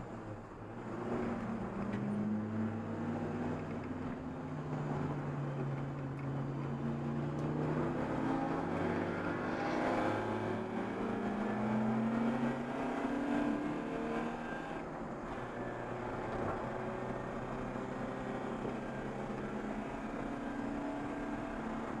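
Race car engine heard from inside its stripped, caged cabin, its pitch rising and falling again and again as the car accelerates and slows around the track.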